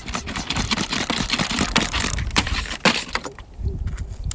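River gravel and small stones clattering and scraping against each other in a rapid run of clicks, thinning out about three seconds in.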